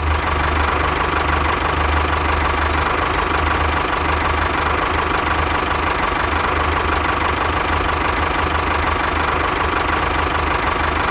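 Tractor engine running steadily at idle: an even low rumble with a thin steady tone above it.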